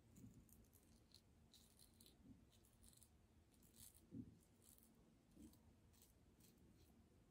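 Faint, short scraping strokes of a King C. Gillette double-edge safety razor cutting stubble on an across-the-grain pass, a dozen or so in quick succession, with a few soft low bumps in between.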